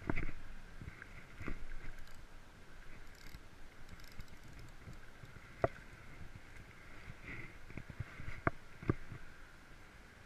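A hooked largemouth bass splashing at the surface as it is reeled in on a spinning reel and landed at the bank, with several sharp knocks and clicks from the tackle and handling.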